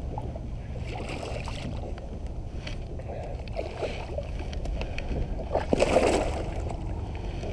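Water splashing beside a kayak as a hooked smallmouth bass thrashes at the surface, loudest about six seconds in, over a steady low rumble.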